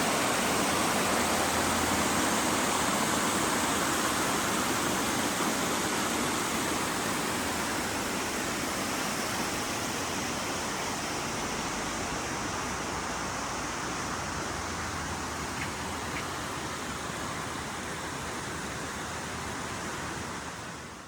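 Small waterfall: a steady rush of falling and splashing water that slowly grows quieter.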